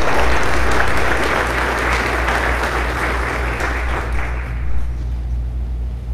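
A small seated audience applauding in a gymnasium. The clapping dies away about four seconds in.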